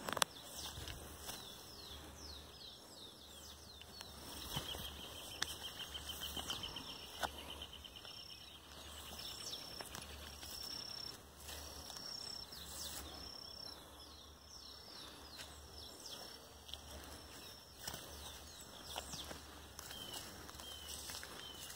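Songbirds chirping and calling all around, short sliding chirps and whistles, with a fast trill about five seconds in. Faint rustles and clicks of someone walking through the grass come through underneath.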